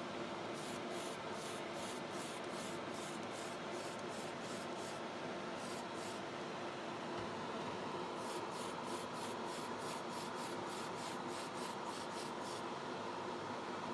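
Quick short hissing strokes, about three a second, in two runs of four seconds or so with a brief pair between, over a steady fan hum.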